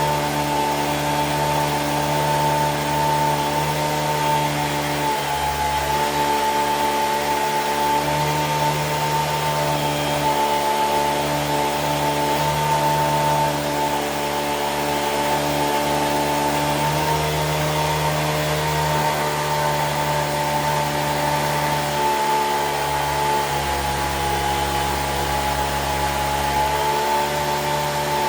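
An electric motor or motor-driven machine runs steadily, a constant whine with a strong high tone over a low hum.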